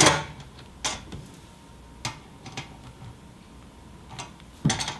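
Scattered light metal clicks and taps from a steel MC cable connector as its adjustable armor stop is set, with a quick run of clicks near the end.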